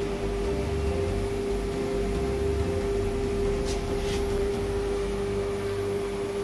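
Axiom AR4 Pro CNC router's Z axis driving the spindle slowly down toward a tool-length touch-off puck during automatic tool zeroing: a steady, even motor whine over a low hum.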